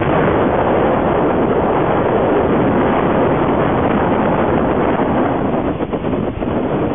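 Loud, steady rush of wind buffeting the microphone, easing briefly about six seconds in.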